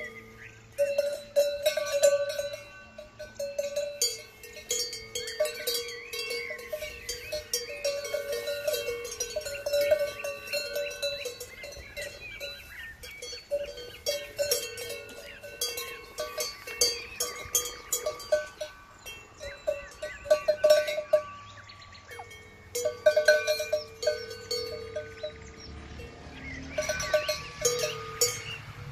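Brass cowbells on grazing cows' leather collars clanking unevenly as the cows move their heads to crop grass, each strike ringing on briefly, with a couple of short lulls.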